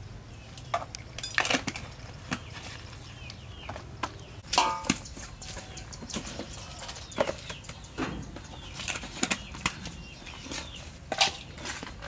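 Plastic jars of chopped peanut salt being filled, capped and set down: scattered clicks, taps and knocks at irregular intervals, the loudest a little before five seconds in.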